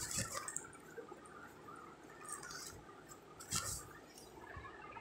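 Faint scraping and light clinks of a metal spoon against ceramic bowls as a thick whipped ice-cream mix is spooned out. A couple of small clicks come near the start and a sharper clink about three and a half seconds in.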